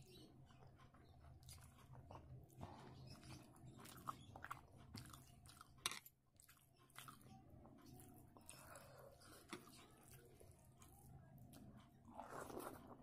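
Faint, close chewing and wet mouth clicks of a person eating rice and dal by hand, with soft squishes of fingers mixing rice on the plate; a somewhat louder mouthful near the end.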